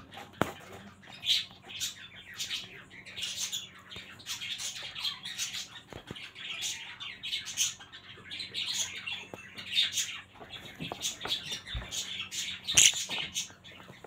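Budgerigars chattering: a busy, unbroken run of short squawks and chirps, with a louder squawk about thirteen seconds in. A few soft knocks come in between the calls.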